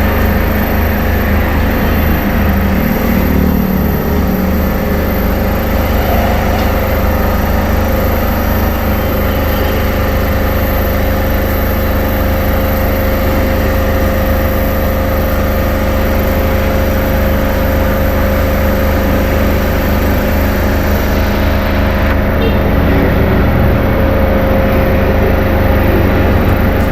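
A large engine running steadily, a loud, unchanging hum with a constant low drone.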